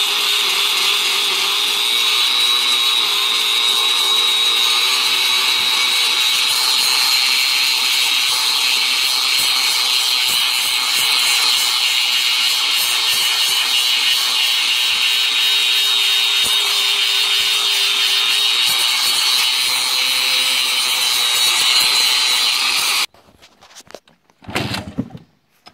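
Angle grinder running steadily against the end of a steel exhaust pipe, grinding the metal and throwing sparks. It cuts off abruptly near the end, followed by one short, loud sound.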